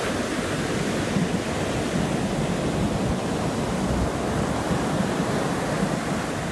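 Ocean surf breaking and washing up the beach in a steady rush of noise.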